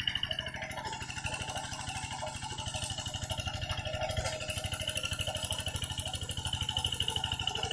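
Single-cylinder Kubota RD diesel engine on a Quick G1000 hand tractor running steadily under load with a fast, even chug while pulling a harrow.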